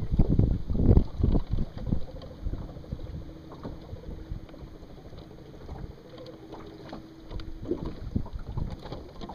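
Wind buffeting the microphone in gusts, heaviest in the first two seconds and again near the end. A faint steady hum runs under it through the middle.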